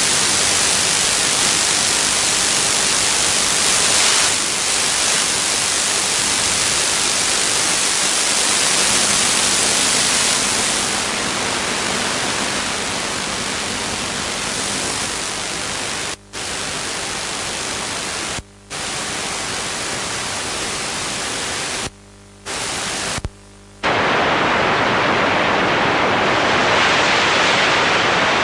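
Radio static: a loud, steady hiss of interference. Near the end it briefly drops out a few times and then turns to a duller rush.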